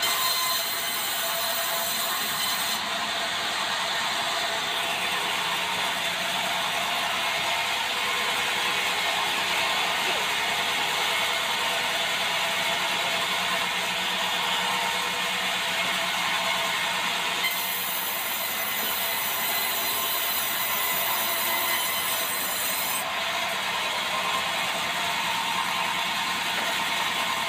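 Sawmill band saw cutting lengthwise through a debarked meranti log, a steady sawing noise as the log carriage runs along its rails.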